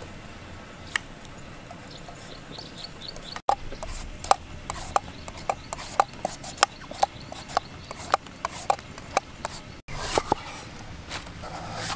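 A knife peeling the skin off a green gourd on a wooden chopping stump: quiet at first, then from about three seconds in a run of short, sharp scraping strokes and knocks of the blade on the wood, irregular, about two or three a second.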